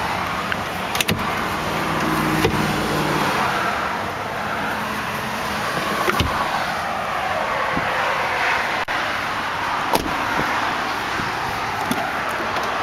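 Steady highway traffic noise, with a few sharp clicks and knocks as the truck's interior fittings and a door handle are handled.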